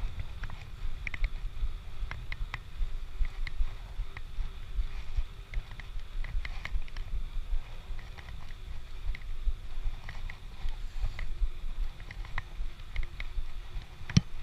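Bicycle riding noise: a steady low wind rumble on the microphone, with scattered light ticks and rattles and one sharp knock near the end.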